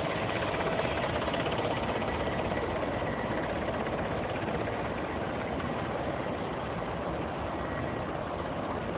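Helicopter flying, a steady rotor and engine noise.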